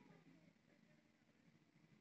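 Near silence: faint background.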